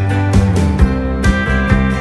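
Background music: upbeat country-style acoustic guitar strumming over a steady beat.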